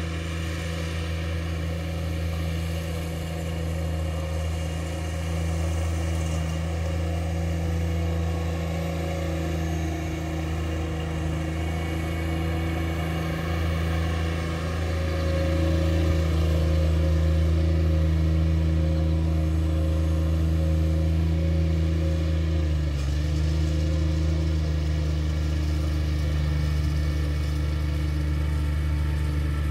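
Riding lawn mower engine running steadily under load while mowing, getting louder as the mower comes nearer in the middle. Its note dips briefly a little past two-thirds of the way through, then holds steady again.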